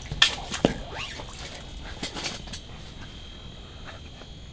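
A few light clicks and scratchy rustles from someone handling gear and clothing, mostly in the first couple of seconds, then only faint background.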